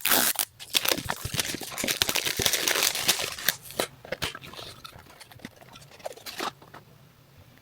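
Product packaging being torn open and handled, crinkling and crackling densely for the first four seconds, then a few scattered rustles that stop about six and a half seconds in.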